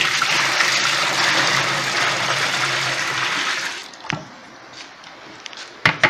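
A bucketful of water poured into a top-loading washing machine's tub, gushing and splashing into the water already in it, stopping about four seconds in. A sharp knock near the end.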